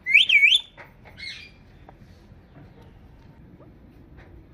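Indian ringneck parrot giving a loud, sharp whistle that swoops up and down in pitch, followed about a second later by a fainter, shorter call.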